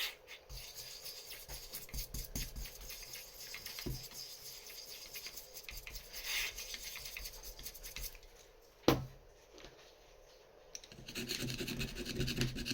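Small brush scrubbing grime off the metal parts of a safe lock, a busy run of fine scratching strokes. A single sharp knock comes about nine seconds in, and the scrubbing gets heavier near the end.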